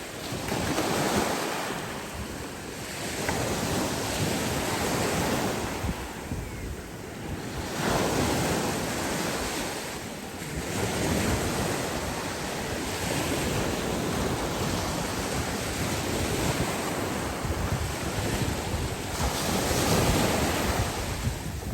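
Ocean surf: waves breaking and washing up the beach, the noise swelling and fading every few seconds, with wind buffeting the microphone.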